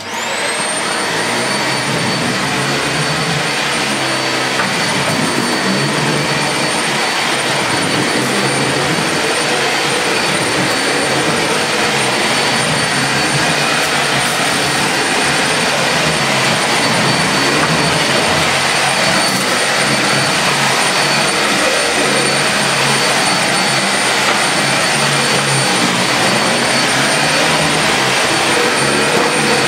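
Dyson Animal Ball 2 (UP24) upright vacuum cleaner switching on, its motor spinning up with a rising whine in the first second. It then runs steadily in max mode as it is pushed back and forth over thick shaggy carpet.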